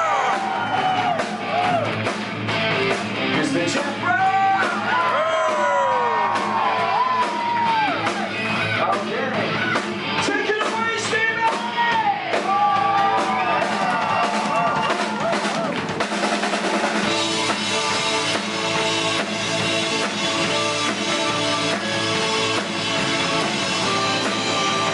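Rock band playing live and loud, with drums and electric guitars; a lead line bends and slides in pitch over the band. About two-thirds through, the music shifts into a denser, steadier section.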